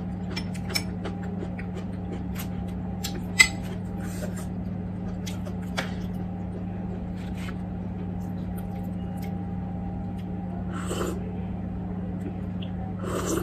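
Eating sounds: a spoon clicking against dishes several times, loudest about three and a half seconds in, then short sips from a soup bowl near the end. A steady low hum runs underneath.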